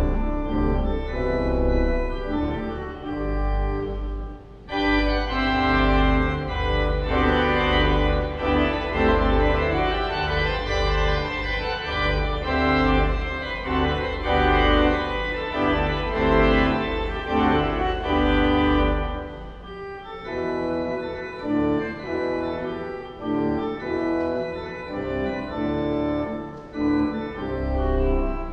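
Church organ playing sustained chords over a deep pedal bass. After a brief break about four and a half seconds in, it comes back fuller and brighter, then grows softer, with less bass, for the last third.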